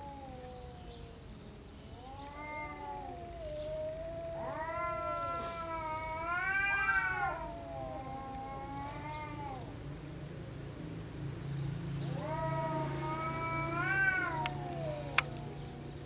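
Two cats caterwauling at each other in a face-off: long, drawn-out yowls that rise and fall in pitch, one after another and sometimes overlapping, the hostile yowling of a territorial standoff before a fight. A sharp click comes near the end.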